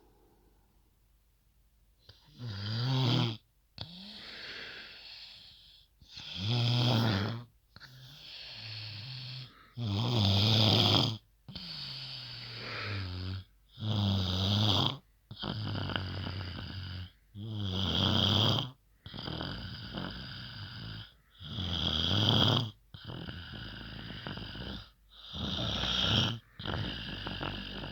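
Loud snoring: about seven deep, low snores, roughly one every four seconds, each followed by a longer, softer hissing breath.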